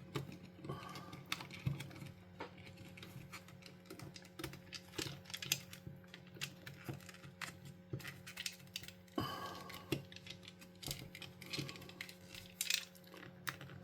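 Irregular light clicks and taps of small plastic controller parts being handled and fitted into a game pad's plastic shell, over a faint steady hum.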